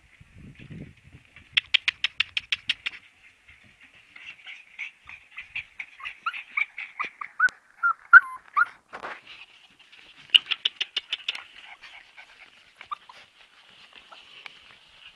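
Siberian husky puppies whining and yipping: a steady high whine with quick runs of sharp squeaks, about two seconds in and again about ten seconds in, and falling squeals in between.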